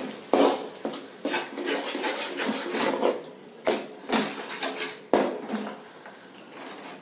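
Perforated steel ladle scraping and knocking against a hammered metal kadai as eggs are stirred and broken up, in irregular strokes.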